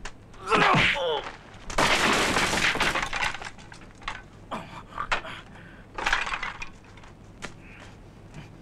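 A man's shout with falling pitch, then a loud breaking crash as a body smashes through wooden fittings, followed by scattered clattering of debris and a smaller impact about six seconds in.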